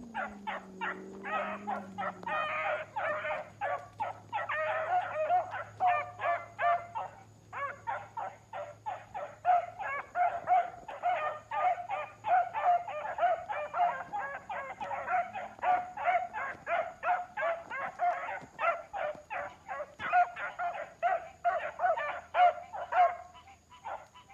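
Four-month-old puppies barking in a rapid, continuous string of high barks, about three a second, that stops shortly before the end.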